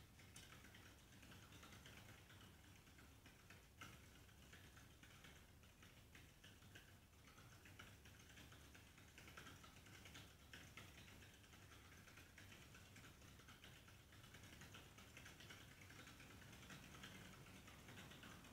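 Hamster running in a large exercise wheel: faint, fast, continuous ticking and pattering of its feet on the wheel and the wheel turning.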